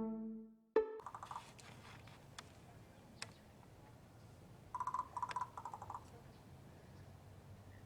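Large crow making fast rattling clicks, a short burst about a second in and a longer series of rattles around five to six seconds in. A last plucked music note ends just before the first rattle.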